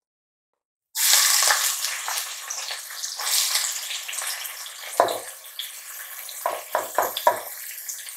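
Chopped onions hitting hot oil and ghee in an aluminium pressure cooker. They start sizzling suddenly about a second in, loudest at first, then settle to a steady frying hiss. A few short knocks come near the middle and again near the end as more onions are added.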